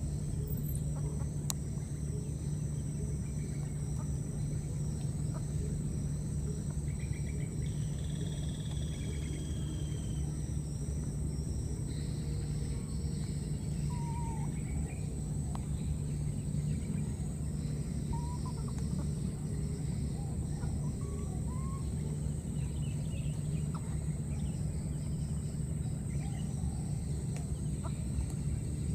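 Outdoor ambience: a steady low hum under a constant high-pitched whine, with scattered short calls of birds, among them clucking fowl.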